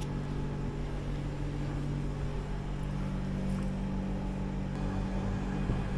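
Milk vending machine running with a steady low mechanical hum.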